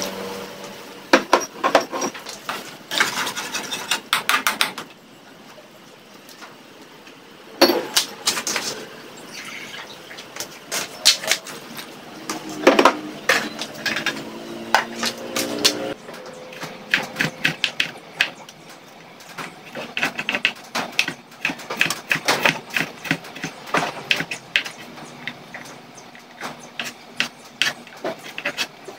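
Irregular kitchen clinks and knocks: a utensil against an aluminium wok of simmering ground pork, and a knife chopping on a wooden cutting board.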